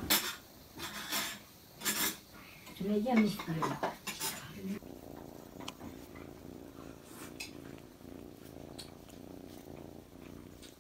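Tabby kitten purring steadily and low. A few handling knocks and rustles come in the first few seconds.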